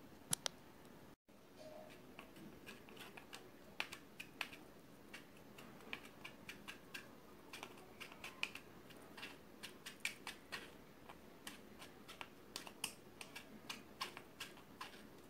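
Faint, irregular light taps, a few a second, of a small mesh strainer being tapped to sift cocoa powder down onto a milkshake's froth.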